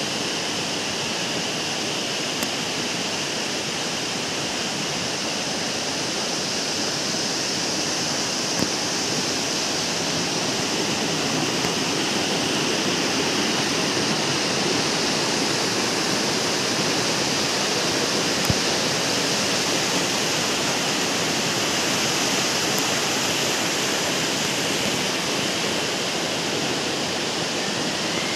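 Steady rush of water from a waterfall and a stream running through a rocky channel, with a couple of brief clicks.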